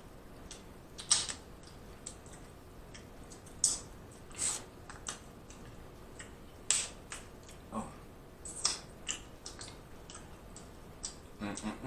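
Seafood shell cracking and being peeled apart by hand close to the microphone: scattered sharp snaps and crackles, a dozen or so spread unevenly.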